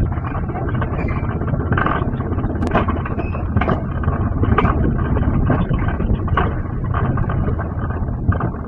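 Alpine coaster sleds running fast downhill on steel tube rails: a steady loud rumble of the wheels on the rails, with frequent sharp clacks at irregular intervals.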